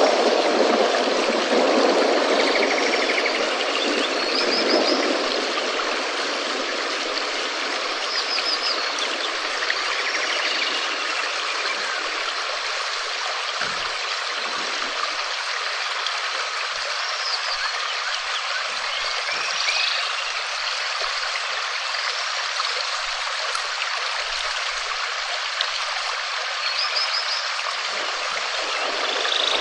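Steady rain falling, a dense even hiss. Faint short high chirping calls come through every few seconds.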